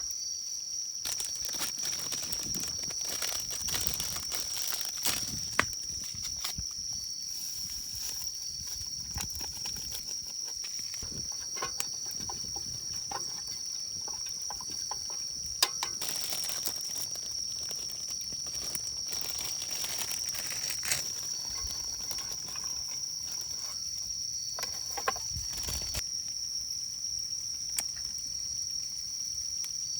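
Steady high insect chirring, typical of crickets, with scattered sharp crackles and pops from the wood fire burning under the grill.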